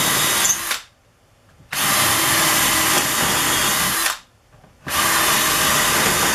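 Power drill boring through holes in wood, running in three bursts: it stops about a second in, runs again for about two and a half seconds, pauses briefly, then runs once more.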